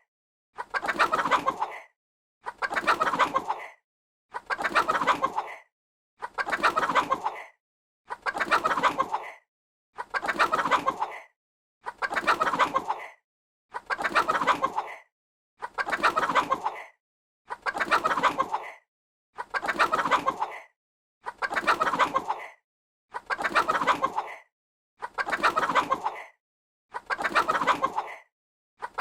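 Chicken clucking in bursts of just over a second, one about every two seconds, with silence between them; the bursts repeat evenly and look alike.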